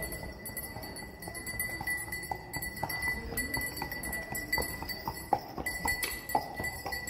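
Horse's hooves clip-clopping on stone paving, a run of irregular sharp knocks over street noise, with a faint steady high-pitched tone.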